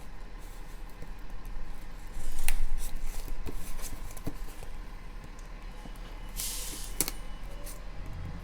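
Packaging being handled and cut open: scattered sharp clicks and snips, with two bursts of rustling, the louder about two seconds in and another about six and a half seconds in.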